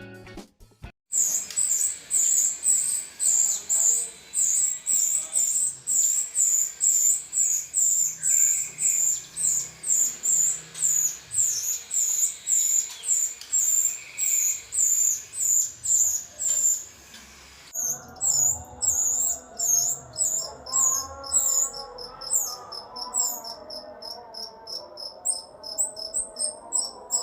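Rio-rio bird singing: sharp high chirps repeated evenly about twice a second, changing about eighteen seconds in to quicker high notes over a lower twittering. Music stops about a second in.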